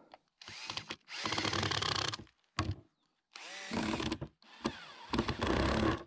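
Cordless drill-driver driving self-tapping screws into plywood. It runs in several short bursts of about a second each, with brief pauses between.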